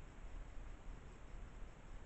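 Faint, steady hiss with a low rumble underneath: the trail camera's microphone noise, with no distinct sound from the bears.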